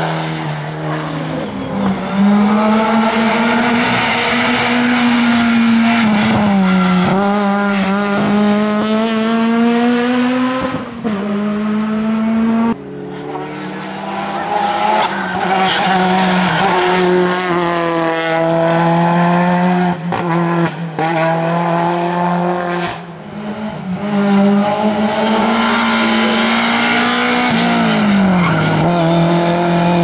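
Competition cars' engines at high revs, one car after another: each engine note climbs in pitch and drops back sharply at gear changes, over and over. A Hyundai touring car passes in the middle.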